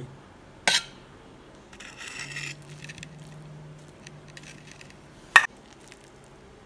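Kitchen utensils being handled during cooking: a sharp clink under a second in, a short scrape about two seconds in, and a second, louder clink near the end.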